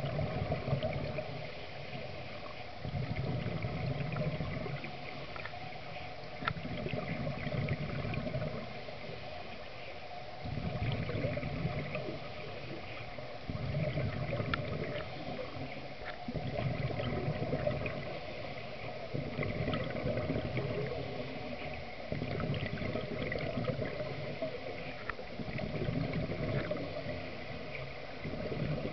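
Scuba diver breathing through a regulator underwater: exhaled bubbles gurgling in bursts about every three seconds, with quieter stretches between.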